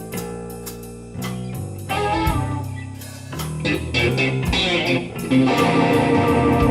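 Live blues band playing an instrumental passage: electric guitar lead over bass guitar and drum kit, getting louder about five seconds in.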